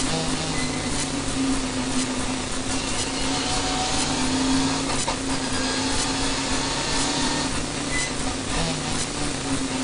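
Renault Mégane RS N4 rally car at speed, heard from inside the cabin: a steady engine drone under heavy road and wind hiss.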